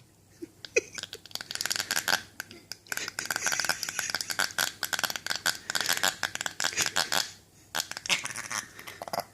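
A Pekingese-poodle mix dog makes a raspy, rattling growl while guarding his cookie, a sign of food guarding. The rasp starts about a second and a half in and runs for several seconds, then breaks into a few shorter bits.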